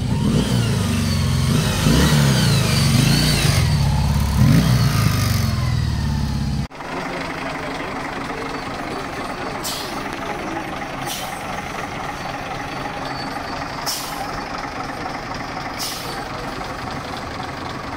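For the first seven seconds a motorcycle engine revs, its pitch rising and falling. Then a sudden cut to the steady running of a Pegaso 1065 lorry's diesel engine, with four short, sharp hisses.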